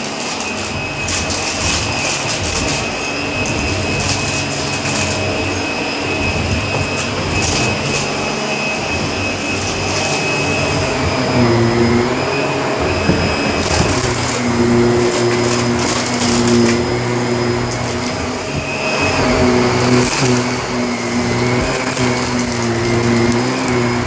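Shark vacuum cleaner running on carpet, its motor hum steady at first and then dipping and recovering in pitch every couple of seconds from about halfway through, with crunchy crackling of debris being sucked up.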